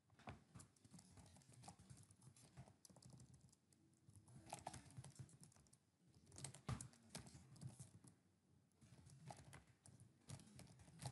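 Faint computer-keyboard typing: runs of quick keystrokes with short pauses between them.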